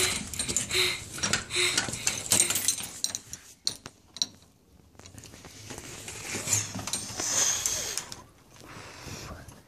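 Rustling, clicking handling noise from a hand-held phone camera being moved about close to the body, busiest in the first few seconds, with a short lull about halfway through.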